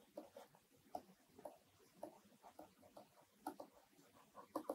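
Faint, irregular ticks and light taps of a stylus on a writing tablet as a short line of handwriting is written.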